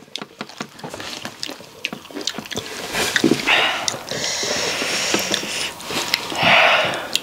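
A person chewing a super-hot Jolochip chip with small crunching clicks while sniffing and blowing hissing breaths through the mouth against the chilli burn. A long hissing breath runs from about four seconds in, and the loudest breath comes near the end.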